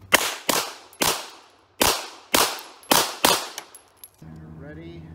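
A string of seven rapid handgun shots fired over about three seconds, spaced unevenly, each trailing off briefly.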